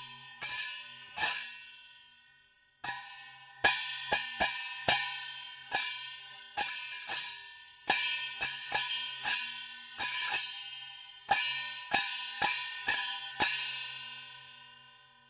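Chinese cymbal struck again and again in an uneven rhythm, each crash ringing briefly before the next. After a short pause about two seconds in, a longer run of hits follows, and the last crash rings away to nothing near the end.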